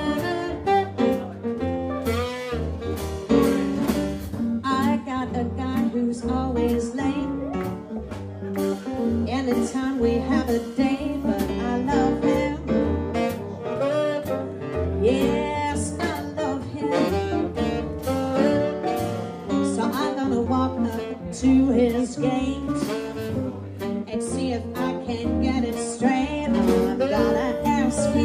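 Live jazz band playing: saxophone and electric guitar over piano, double bass and drums, with a steady beat.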